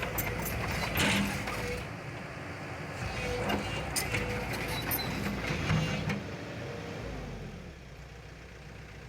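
Heavy engine running, with scattered clanks and knocks, quieter from about seven seconds in.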